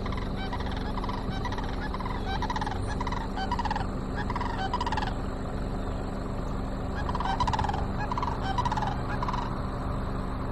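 Farm fowl calling in two bouts of quick, short, falling notes, over a steady low hum.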